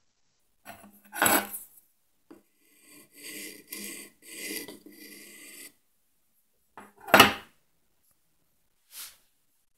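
Several rasping strokes of a flat metal file on the wooden drawer of a puzzle box, easing it so the box opens without sticking. The strokes fall between two sharp knocks of wood being handled, and the second knock, about seven seconds in, is the loudest sound.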